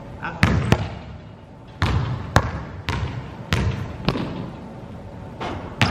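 A basketball bouncing on a hard gymnasium floor, about nine bounces at uneven spacing, each with an echoing tail.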